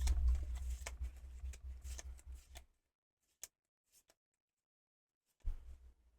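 Handling a Pokémon card booster pack and its cards: scratchy rustling and small clicks with a low rumble against the microphone for the first couple of seconds, then quiet, and a short rustle again near the end.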